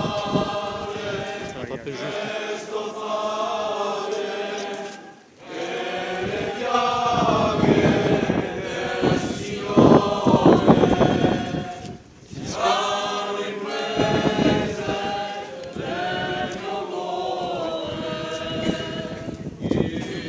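A group of voices singing a slow processional religious chant in long held phrases, with short breaks for breath about five and twelve seconds in.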